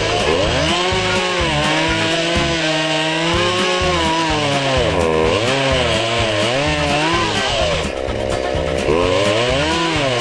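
Chainsaw running and cutting, its engine pitch rising and falling again and again as the revs change under load. Background music plays underneath.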